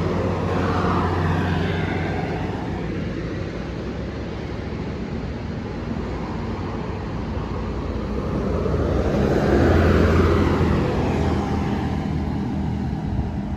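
Road traffic passing: a low engine drone and tyre noise that ease off, then swell to their loudest about ten seconds in as a vehicle goes by, and fade again.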